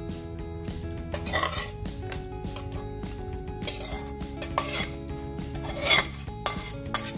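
A metal spoon scraping and clinking in a cooking pan while scooping up sauce and onions, in several separate strokes over background music.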